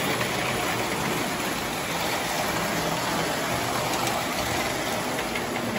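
Prewar tinplate toy passenger train running on three-rail tubular track: a steady rumble of the wheels and the locomotive's motor.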